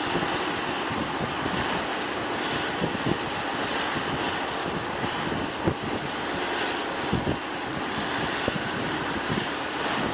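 Outdoor wind buffeting the microphone with low thumps, over the steady wash of small waves breaking in shallow surf.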